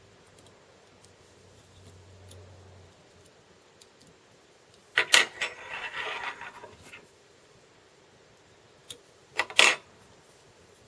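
Small fly-tying tools being handled and set down: a cluster of sharp metallic clicks about five seconds in, followed by brief rustling, and another pair of clicks near the end.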